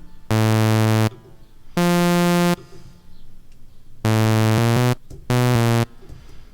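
Bright, buzzy software synthesizer (Serum) playing four short chords or phrases with pauses between them, the third stepping quickly through a few notes near its end, as a chord part is worked out by ear.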